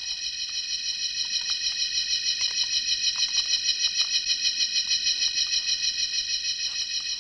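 A steady, high-pitched buzzing whine, pulsing rapidly several times a second and growing a little louder through the middle, with a few faint clicks beneath it.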